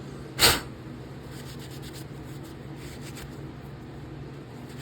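A short loud burst about half a second in, then a few faint rubbing strokes of a paper towel wiping the knife's parts.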